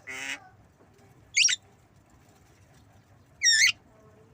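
Javan myna calling: a short harsh rasp at the start, then two brief sharp, wavering whistles about two seconds apart.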